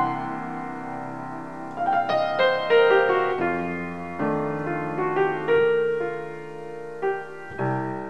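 Background piano music: held chords under a melody of single notes.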